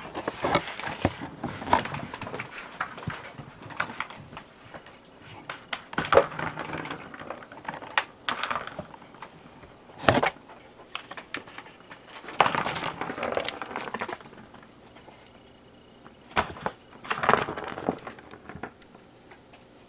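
Cardboard box being handled: irregular rustling and scraping with a few sharp knocks, coming and going in bursts with short quiet gaps.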